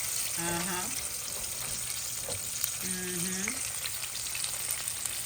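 Hot oil sizzling steadily in a frying pan of chicken wings.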